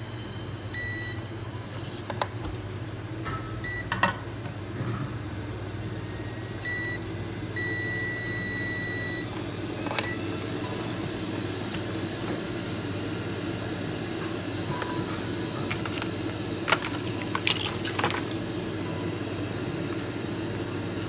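Electronic beeper on the repair bench sounding a few short beeps, then one longer beep of about a second and a half, over a steady low hum. Sharp clicks follow about ten seconds in and again near the end.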